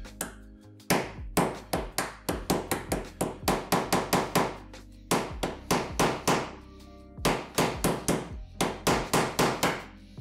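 Ball peen hammer tapping a copper rivet to peen it over its burr on leather, on a hard makeshift anvil: quick strikes about three a second in three runs, with two short pauses. Background music plays underneath.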